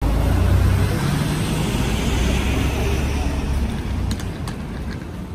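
A road vehicle's engine running close by on a city street, a low steady rumble that fades away over the last couple of seconds. There are a few sharp clicks near the end.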